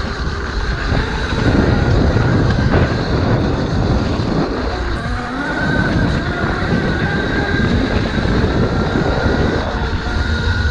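Riding noise of an electric bike: a continuous low rumble with a thin high whine that comes and goes.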